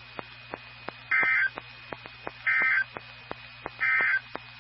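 Emergency Alert System end-of-message (EOM) signal on NOAA Weather Radio: three short, loud bursts of warbling digital data tones, about a second and a half apart, marking the end of the warning broadcast.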